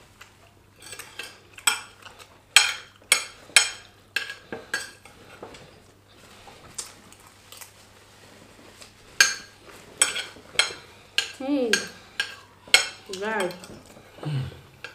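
Metal forks and spoons clinking and scraping against ceramic dinner plates, with many sharp clinks in quick succession. Near the end a person's voice makes a few short gliding sounds.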